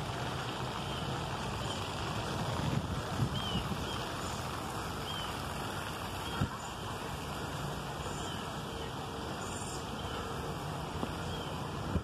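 Outdoor city-park ambience: a steady low background rumble with faint, short bird chirps recurring every second or so, and a couple of soft knocks about three and six and a half seconds in.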